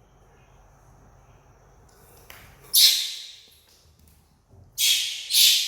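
Young monkey giving three shrill, high screeches, the first about three seconds in and two more close together near the end, each cut off sharply and fading quickly.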